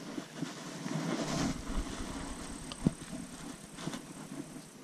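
Wind buffeting the microphone and rustling handling noise while a float rod is cast and held, with one sharp knock about three seconds in.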